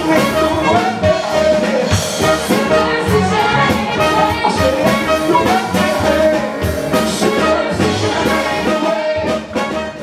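A live show band playing a jazzy number, led by its brass section of trumpets and trombones over drum hits.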